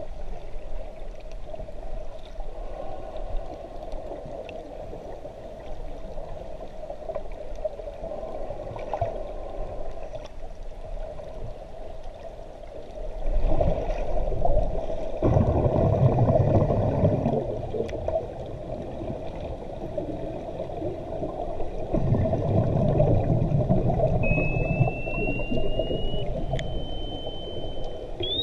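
Muffled water noise heard underwater: gurgling and sloshing over a steady hum, swelling into louder rushing stretches twice, about halfway through and again later. A faint high tone glides slowly upward near the end.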